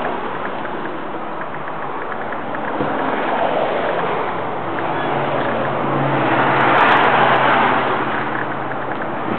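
Steady rushing noise of a passing motor vehicle with a low engine hum, swelling to its loudest about seven seconds in.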